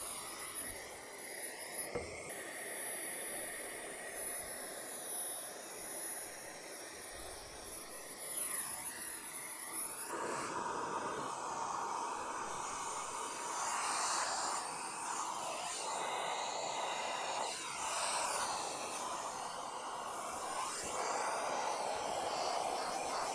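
Vacuum drawing air through a 3D-printed dustless hand sanding block, a steady rushing that gets louder about ten seconds in. The pitch of the airflow shifts now and then as the pad is pushed across the plywood.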